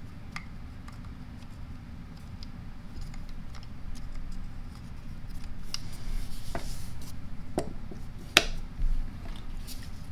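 Small clicks and taps of a plastic selector button being worked into the handle housing of an Ingersoll-Rand 2131 air impact wrench, with a few sharper clicks in the second half, the loudest about eight seconds in.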